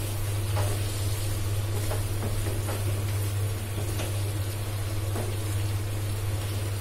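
Spatula stirring and scraping pieces of chicken in thick masala in a non-stick frying pan, with a few light scrapes and knocks, over a steady low hum.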